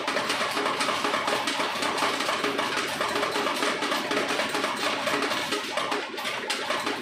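Cirsa slot machine's coin hopper paying out, a rapid continuous clatter of coins dropping into the metal tray over the machine's repeating electronic tune: the credits are being cashed out.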